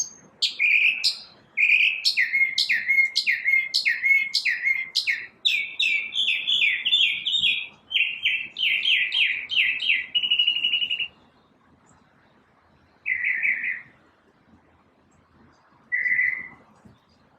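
A single bird singing a long, fast run of repeated chirping notes, switching to a different note every few repeats, then stopping about eleven seconds in, with two short calls after the pause.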